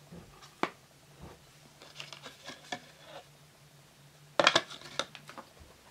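Scattered sharp clicks and light clatter of small hard objects being handled close to the microphone, with a quick, louder cluster of clicks about four and a half seconds in.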